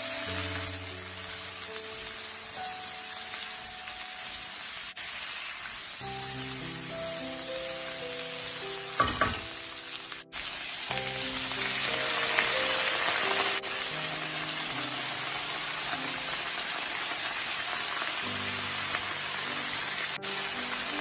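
Vegetables sizzling as they stir-fry in a hot pan, the hiss swelling for a couple of seconds about twelve seconds in, with a short clatter of the utensil against the pan about nine seconds in. Soft background music plays underneath.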